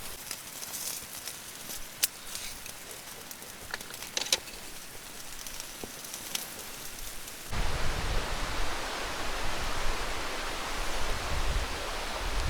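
A few sharp crackles, like a campfire, over a soft hiss. About seven and a half seconds in, this cuts abruptly to a louder, steady rushing noise with a low, fluctuating rumble.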